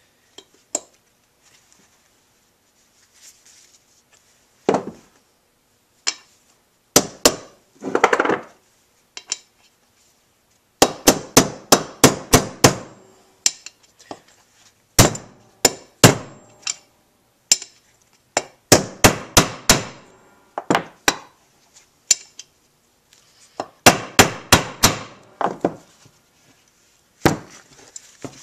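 A mallet tapping a bearing into a heated aluminum motorcycle crankcase, a 2006 Kawasaki KX250F case half, to seat it. The taps come in bursts of several quick strikes, with pauses between the bursts.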